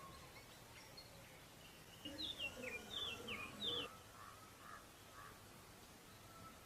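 A bird calling: a quick run of about five short, falling notes about two seconds in, over faint outdoor background hiss.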